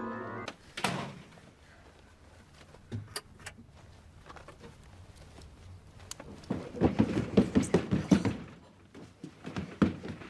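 A fast run of heavy thuds on wooden stairs, about five or six a second, from someone stomping down a staircase. A few scattered knocks and taps come before it.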